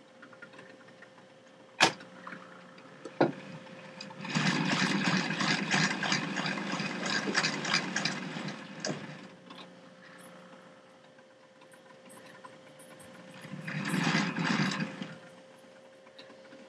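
HO scale model locomotives running, their small electric motors whirring with a clatter of wheels on the track. This comes in two stretches: a longer one starting about four seconds in and a shorter one near the end. A few sharp clicks come before it, and a faint steady hum lies underneath.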